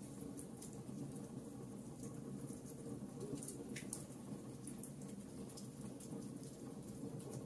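Wood fire crackling: logs burning with scattered small pops and snaps over a steady low rush of flame.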